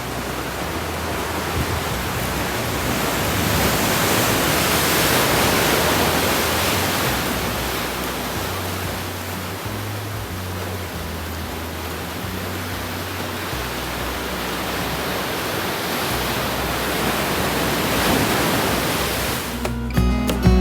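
Ocean surf washing against a rocky shore, a steady rush that swells, eases off and builds again. Music starts near the end.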